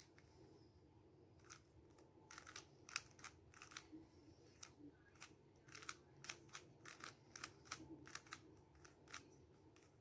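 A 3x3 Rubik's cube being turned by hand: its plastic layers click and clack in quick, irregular runs of turns, starting about a second and a half in. Faint, over a low steady room hum.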